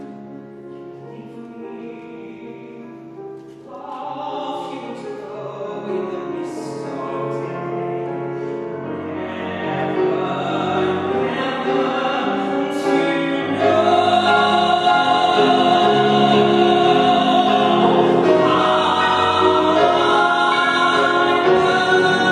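A man singing into a microphone with grand piano accompaniment. The song builds from soft to loud, with a long held note in the second half.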